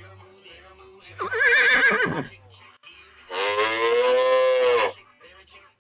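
A horse whinnying: a wavering, high call about a second in that drops away at the end, then a longer, steadier call about three seconds in. A soft regular beat of background music runs underneath.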